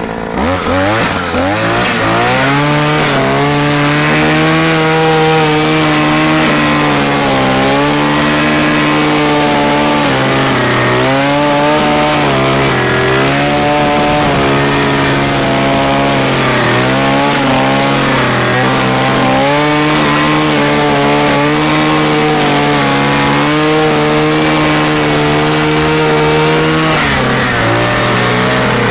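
BCH 400T petrol brush cutter running at working revs while its trimmer head cuts grass. The engine pitch dips and recovers again and again as the line bites into the grass and the throttle is eased, and the revs drop lower near the end.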